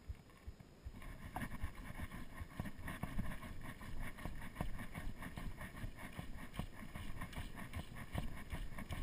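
Wind buffeting the microphone with water noise around the boat: an even rush with irregular low thumps, picking up about a second in.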